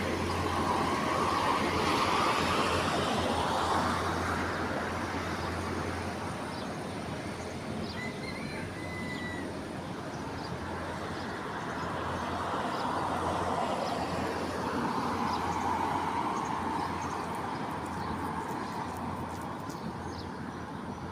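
Steady road traffic noise that swells twice as vehicles pass and fades between. A single short high bird call about eight seconds in.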